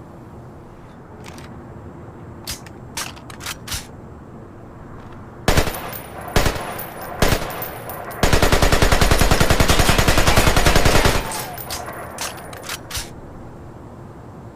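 AK-47 rifle firing: a few faint shots, then three loud single shots, then a full-automatic burst of about three seconds at roughly ten rounds a second, followed by a few more scattered shots.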